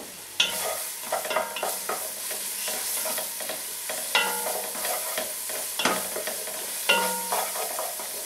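Chopped shallots sizzling in a hot pan while they are stirred with a wooden spoon. The spoon scrapes the pan and knocks against it about four times, and the louder knocks leave a short metallic ring.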